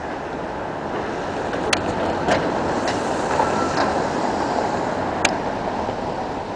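Street traffic noise: a steady rush that swells through the middle and eases off near the end, as a vehicle passes, with a few sharp clicks.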